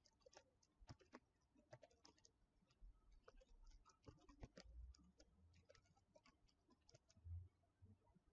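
Faint typing on a computer keyboard: quick, irregular key clicks, with a few soft low thuds in between.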